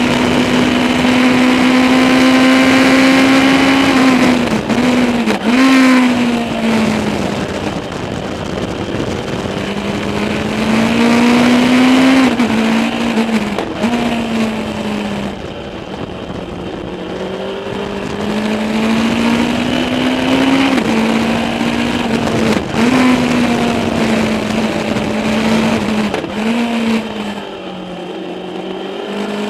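Legends race car's engine, heard from inside the cockpit, running hard through a lap. The engine note climbs and falls again and again, dropping with short quick blips several times, as when lifting off, braking and shifting down for corners, then pulling up again.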